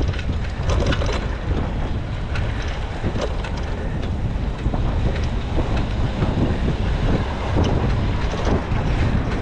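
Wind buffeting the microphone of a camera on a moving bicycle, a heavy low rumble that rises and falls, with scattered light clicks and rattles.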